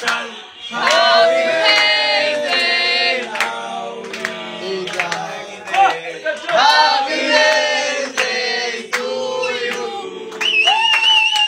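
A group of young men singing a birthday song together, loudly and without accompaniment. Near the end a high, wavering call rises above the singing.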